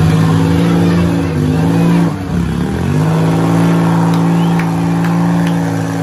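Demolition derby car's engine revved hard and held at high revs, a steady high-pitched drone that dips briefly about two seconds in and then climbs back.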